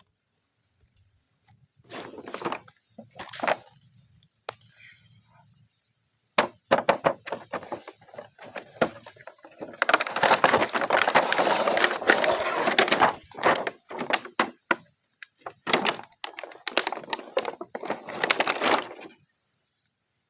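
Toy packaging being handled and opened: crinkling, rustling and clicking in several spells, the densest and loudest about ten to thirteen seconds in.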